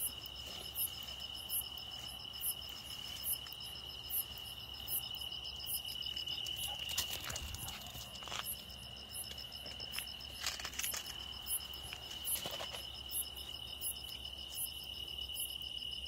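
Night insects calling: a steady high trill, with a sharper, higher chirp repeating a little more than once a second. A few brief rustles and knocks come through partway in.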